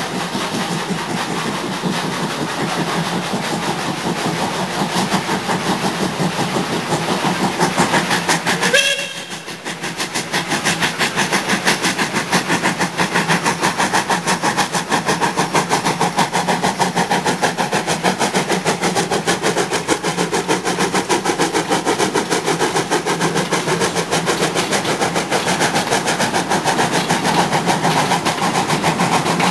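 Neilson No. 27 steam locomotive hauling a train, running with a rapid, steady beat of exhaust and rolling stock as it comes on. The sound dips briefly about nine seconds in.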